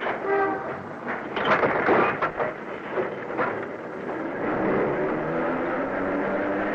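Old elevated train car: metal knocks and clatter as its gates are worked shut, then a steady rumble with a level whine as the train gets under way.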